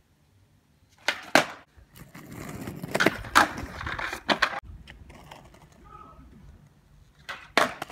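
Skateboard on concrete: the wheels rolling and the board popping and cracking down on flip tricks, with sharp cracks about a second in, a stretch of rolling with several loud smacks in the middle, and two more cracks near the end.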